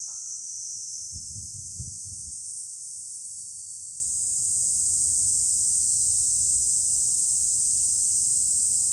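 A steady, high-pitched chorus of insects, jumping much louder about four seconds in, over a faint low rumble; it cuts off suddenly near the end.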